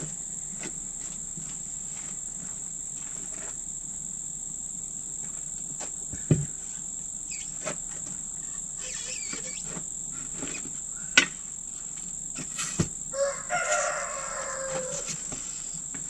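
Scattered metal clinks and knocks of hand tools prying the locking ring off a steel split-rim (Dayton-style) bus wheel, the sharpest knock about two-thirds of the way through, over a steady high insect drone.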